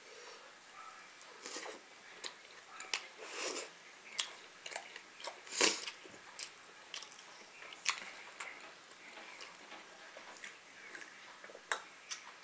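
A person chewing and biting food close to the microphone, with irregular mouth clicks and smacks, the loudest about five and a half seconds in.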